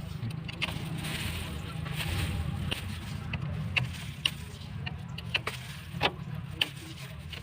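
Scattered sharp metal clicks and clinks of hand tools and parts being worked on a motorcycle's opened engine, over a steady low hum.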